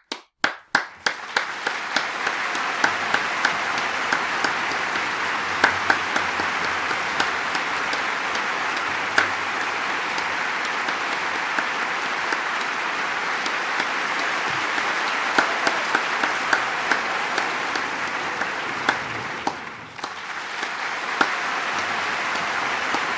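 Large crowd applauding and cheering. It begins with a few separate claps that quickly merge into dense, steady applause, briefly dips about twenty seconds in, then picks up again.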